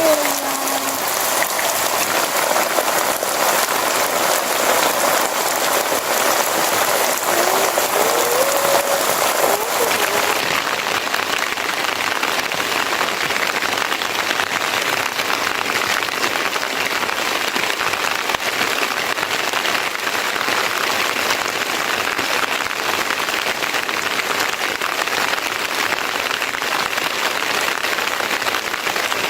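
Steady rain falling and pattering on surfaces. A short pitched call rises and falls about eight seconds in, and the hiss of the rain turns duller about ten seconds in.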